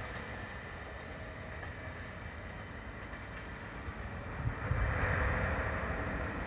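Freight train of oil tank wagons hauled by an EH200 electric locomotive, running along the track with a steady rumble that grows louder about four and a half seconds in.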